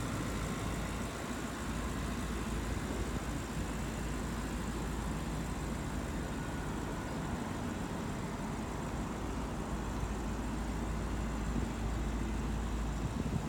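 Steady low rumble of a car engine idling, unchanging throughout.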